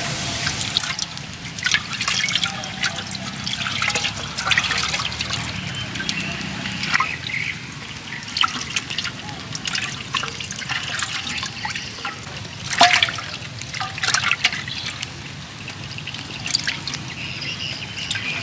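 Water splashing and dripping in a clay pot as hands grab fish in it and lift them out, with irregular splashes and one louder splash about two-thirds of the way through.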